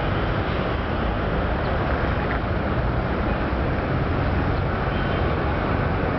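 Steady, even hum of city traffic with a heavy low rumble and no distinct events.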